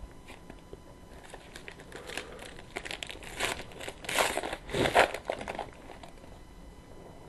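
Trading-card pack wrapper crinkling as it is handled and opened, in a run of rustling bursts through the middle that are loudest just past halfway.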